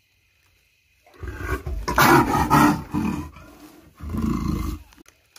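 A leopard growls loudly in two bursts: a rough growl of about two seconds starting a second in, then a shorter one about four seconds in.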